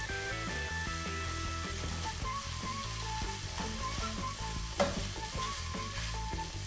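Rice, tofu and diced vegetables sizzling in a hot ceramic-lined wok while a spoon stirs and scrapes them around the pan. One sharper scrape of the spoon against the pan comes about five seconds in.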